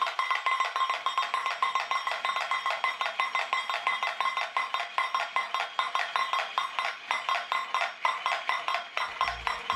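Wind-up toy robot's clockwork running: rapid, even clicking, about five a second, with a tinny metallic ringing over it. A low thump near the end.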